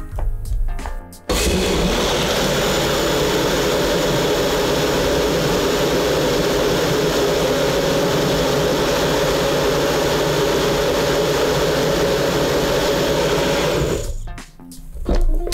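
Personal bullet blender's motor running at full speed, blending milk and strawberries. It starts abruptly about a second in, runs steadily, and winds down near the end.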